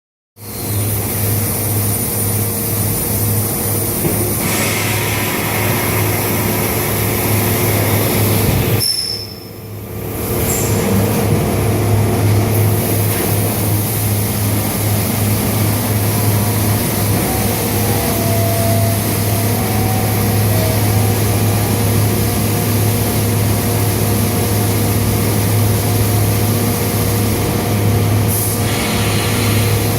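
Automatic pressure-vacuum forming machine running while thermoforming an ABS door panel: a steady low machine hum under a hiss of air, which dips briefly about nine seconds in and shifts in strength a few times.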